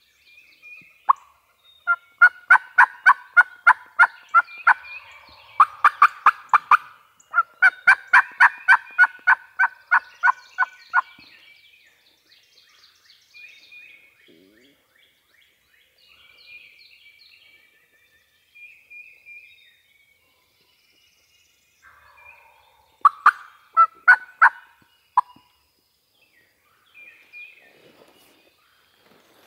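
Wild turkeys calling: two long series of loud, evenly spaced calls in the first eleven seconds, then a short burst of calls a little past the middle. Songbirds chirp faintly between them.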